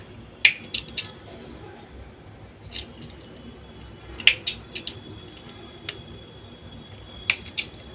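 Scattered sharp clicks and ticks, about ten in all, of small plastic and metal trimmer parts being handled and fitted by hand.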